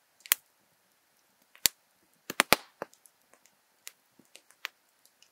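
Wood campfire crackling, with irregular sharp pops from the burning logs over an otherwise quiet background. The loudest pops come in a quick cluster about two and a half seconds in.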